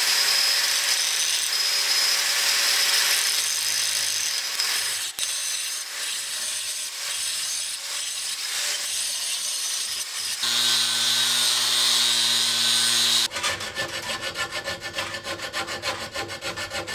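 Angle grinder with a small, half-worn grinding wheel cutting into the steel mounting slot of a chainsaw bar to widen it, a steady grind with a high whine. The grind stops about thirteen seconds in. Then a hand file rasps back and forth in the slot in quick, even strokes.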